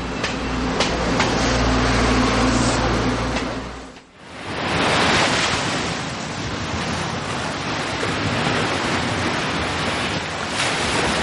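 A low rumble with a steady hum for about four seconds, which drops away suddenly, followed by a steady rushing noise.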